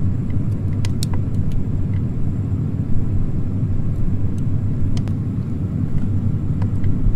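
A loud, steady deep rumble with a few faint high clicks scattered through it.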